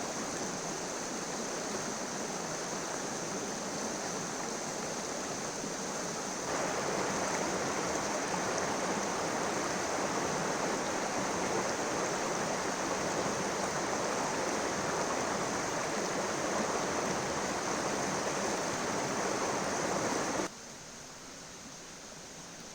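River water rushing steadily. It gets louder about six seconds in and drops away suddenly near the end.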